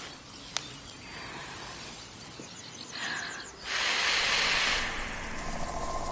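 Quiet summer field ambience with faint, rapid insect chirping around the middle. A short breathy whoosh of air comes about two-thirds of the way through, as seed heads are blown loose.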